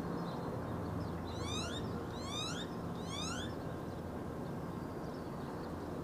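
Steady low outdoor background noise, with three short rising chirps about a second in, each a quick upward squeak, evenly spaced under a second apart.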